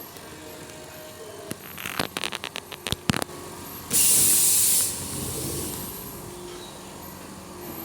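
A quick run of clicks, then a short, loud hiss lasting under a second, over a quiet machine-like background.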